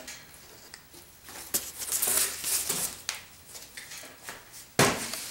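Handling noises: cardboard mesh packaging rustled and scraped as it is moved and set aside, with one sharp knock near the end.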